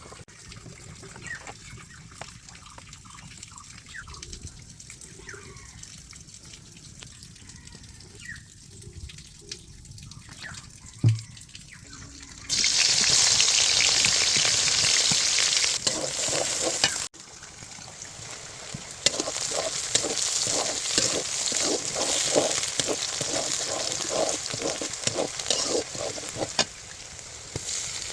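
Food frying in hot oil in a pan. A sharp knock comes about eleven seconds in, then a loud sizzle starts suddenly just after it. The sizzle breaks off briefly and comes back with quick, regular scraping strokes of stirring.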